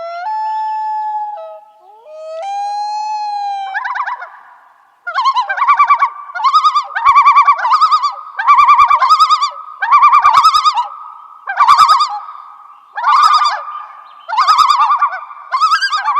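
Loud bird calls: two long, held notes, then a series of rapid, wavering calls repeated about once a second.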